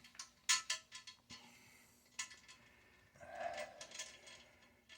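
Small metal clicks and clinks of toilet tank-to-bowl bolts, washers and nuts being handled and fitted, several in the first couple of seconds, then a short scraping sound about three seconds in.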